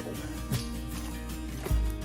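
Background music: steady held notes with a few plucked notes.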